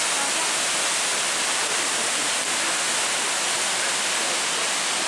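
Steady rushing water, an even hiss with no breaks.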